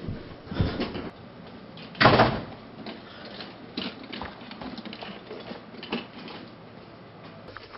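Footsteps on stairs and a path, with a loud door bang about two seconds in.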